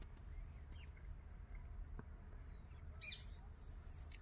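Quiet outdoor ambience: a low rumble with a steady high-pitched whine running under it, a few faint ticks, and a short bird chirp about three seconds in.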